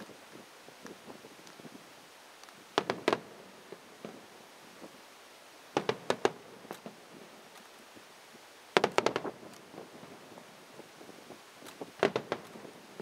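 Fan-shaped firework batteries firing low over water: four volleys of several sharp pops each, about three seconds apart.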